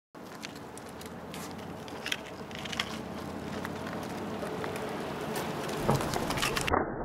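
Mountain bike on airless lattice-structure wheels rolling over rough asphalt: steady tyre noise with scattered sharp clicks and crackles of grit, and a few louder knocks about six seconds in.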